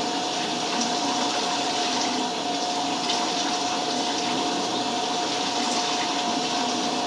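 Tap water running steadily from a faucet or shower as hair dye is rinsed out, with a steady tone running through the rush of water.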